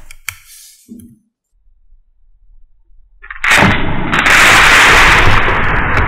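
Edited-in whoosh sound effect: after a couple of faint clicks, a loud rushing whoosh starts suddenly about three and a half seconds in and carries on, its top slowly falling.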